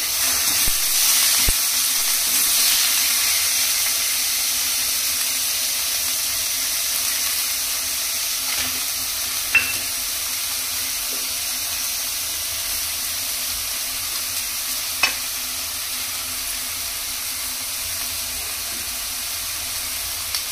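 Hot cooking oil sizzling steadily in a frying pan, with two sharp clicks, about halfway through and again about three-quarters through.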